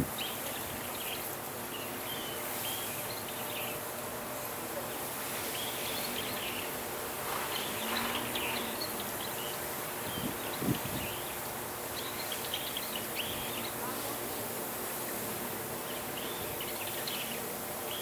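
Outdoor ambience: a steady background hiss with short high chirps scattered throughout.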